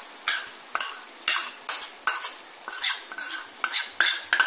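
A spoon scraping and knocking against a bowl to empty poppy-seed paste into a pan: about a dozen sharp knocks and scrapes at uneven intervals.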